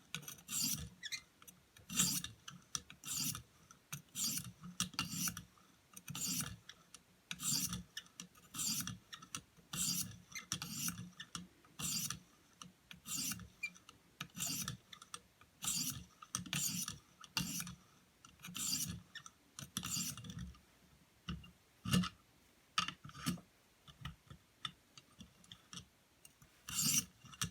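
A 1200-grit sharpening stone scraping along a pocket knife's edge in repeated strokes, about one or two a second, refining the edge after the coarser grit.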